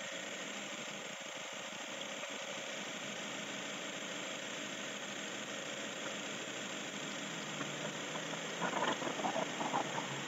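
1998 Mazda 626 engine idling steadily with its accessories switched off. A few uneven, louder knocks come through near the end.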